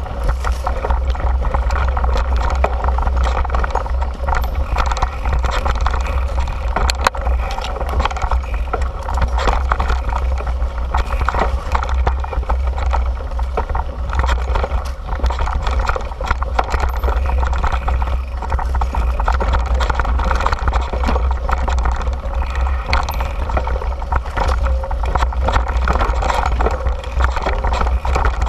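Mountain bike ridden fast down a dirt singletrack: steady wind rush on the bike-mounted camera's microphone and knobby tyres rolling over dirt, with frequent small clatters of the bike over bumps.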